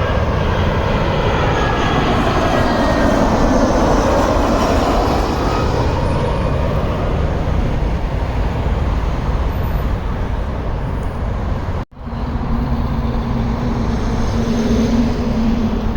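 Loud jet engine noise of an airliner on landing approach passing overhead, its whine falling in pitch as it goes by. About twelve seconds in, the sound cuts out for an instant, then steady engine noise with a low hum resumes.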